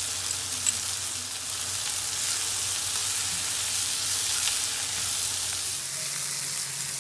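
Sliced mushrooms and onions sizzling steadily in a frying pan as a spatula stirs them, with a sharp tap a little under a second in and a few light scrapes.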